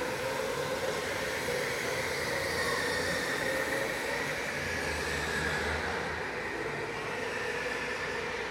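Indoor racing go-karts running at speed: a steady electric-motor whine that wavers slightly in pitch as speed changes, over tyre and track noise.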